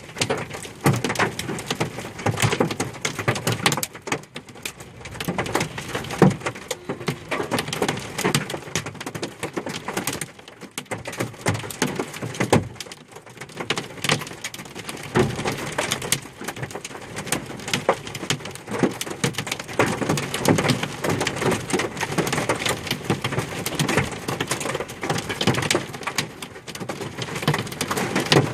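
Golf-ball-size hail falling hard, a dense clatter of countless hailstones striking hard surfaces.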